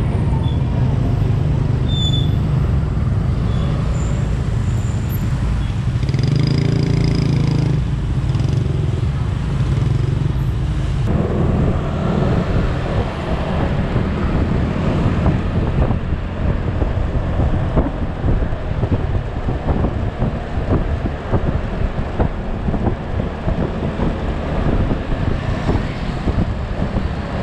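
Riding an automatic scooter in traffic: steady engine and road noise, with a brief pitched sound from another vehicle about six seconds in. About eleven seconds in the steady drone gives way to a rougher, choppier rush of noise with many small crackles.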